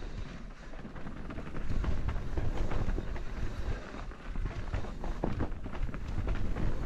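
Mountain bike riding down a dirt singletrack: tyres rolling over dirt and roots, with a quick run of rattles and clicks from the bike, and wind rumbling on the camera microphone.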